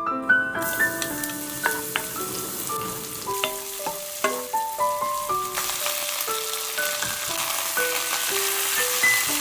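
Sliced red onion and minced garlic sizzling in hot oil while being stirred with a wooden spoon, then chicken feet sizzling as they are stirred in the pan. The sizzle gets louder about halfway through. A light melody of short single notes plays over it.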